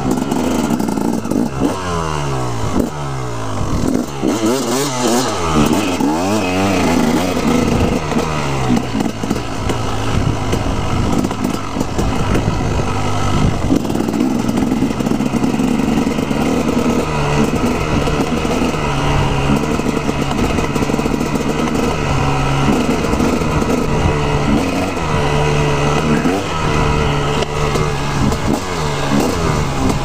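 A KTM 250SX two-stroke dirt bike engine under way. It revs up and drops back several times in the first several seconds, then holds a steadier pitch with smaller throttle changes.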